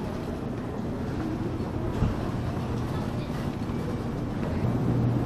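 Busy railway station ambience: people climbing a stairway toward a platform, with a steady low train hum that grows louder near the end. A single sharp knock about two seconds in.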